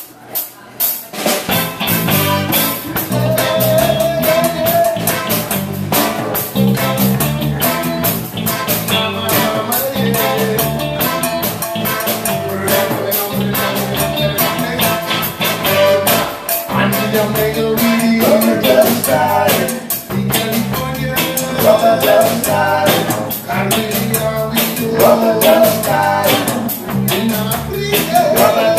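Live reggae band playing a steady groove with drums, keyboard and guitar, starting about a second in.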